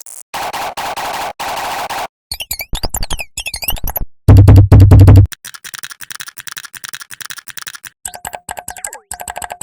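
A string of short, effect-processed versions of rapid computer mouse clicking, each a second or two long: clicks turned into pitched synth-like tones, warbling chirps, a very loud distorted bass-boosted burst about four seconds in, then fast thin clicks and clicks with gliding tones near the end.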